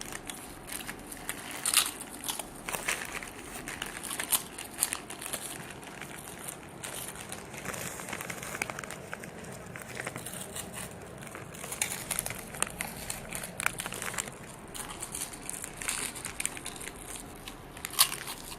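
Crisp packets crinkling and crisps being crunched and chewed: an irregular scatter of short crackles, with a sharper one near the end.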